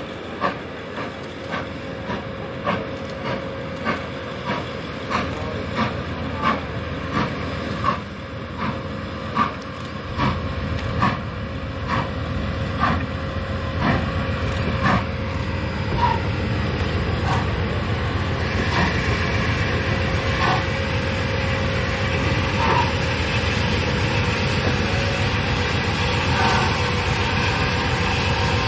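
Santa Fe 3751, a 4-8-4 Northern-type steam locomotive, working past with a regular beat about every two-thirds of a second. From about ten seconds in a deeper rumble builds as the engine goes by, giving way to the steady rolling noise of the train passing.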